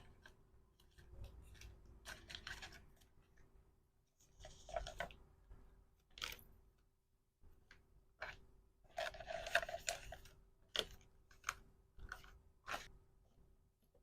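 Packaging being handled by hand: plastic wrapping crinkles and rustles in a few short spells, between scattered sharp taps and clicks as small items are picked up and set down.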